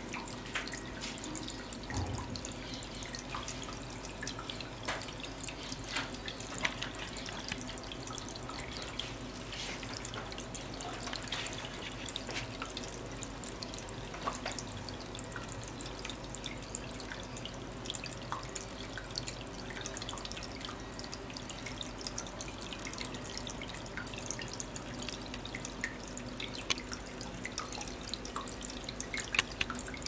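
Small tabletop artificial waterfall fountain running, water trickling down its rock face and dripping into the basin. Frequent irregular drips and splashes sit over a steady hiss of falling water and a faint steady hum.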